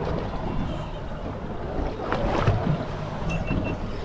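Wind buffeting the microphone and choppy sea sloshing against a boat's hull, with a louder surge about two seconds in. Three short high beeps sound a little after three seconds in.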